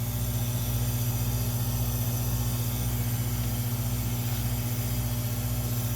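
A steady engine idling, an even low hum with a fine regular pulse.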